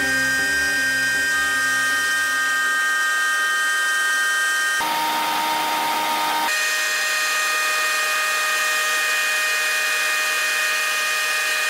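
Spindle moulder (wood shaper) running with a steady high whine while a board is fed along its fence past the cutter. About five seconds in the tone changes for a second or two, then the same whine returns.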